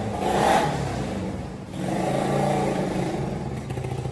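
Motorcycle engine running, briefly louder about half a second in.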